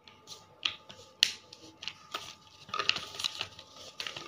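A sheet of paper rustling and crackling as it is folded and creased by hand, in sharp crisp crackles. The loudest comes about a second in, and a denser run of crinkling follows near the three-second mark.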